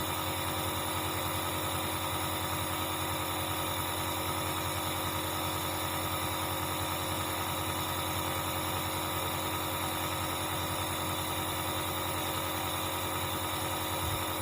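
Dr Trust compressor nebulizer's electric compressor running with a steady, even hum.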